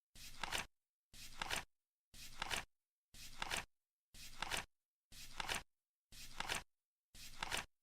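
Flip-clock ticking sound effect, once a second: each tick is a short rustle as a card flips, ending in a couple of sharp clacks as it lands, eight in a row.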